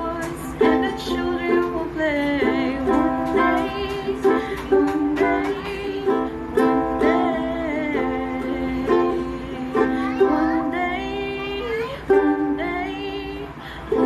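Ukulele strummed in chords, with a voice singing a song along with it.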